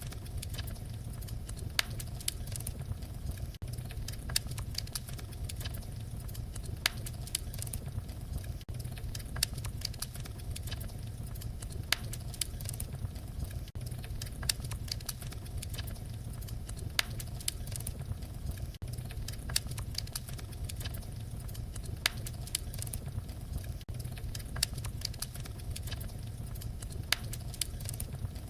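Wood fire crackling: a steady low rumble of flames with frequent small snaps and a louder pop every second or two.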